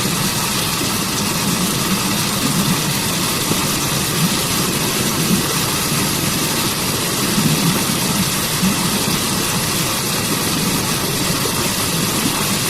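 Waterfall and stream water rushing in a steady, unbroken roar, with a low churning rumble underneath.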